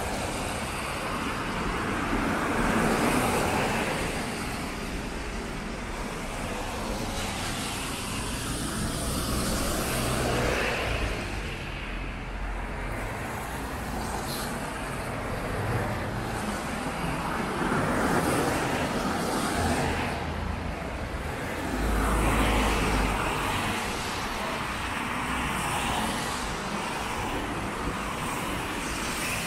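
Car traffic passing along a wet city road, vehicles swelling and fading one after another over a steady traffic hiss.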